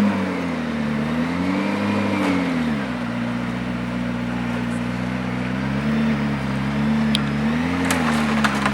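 McLaren P1's twin-turbo V8 idling, its revs rising and falling gently in the first three seconds, then holding steady with a couple of small blips. A few light clicks near the end.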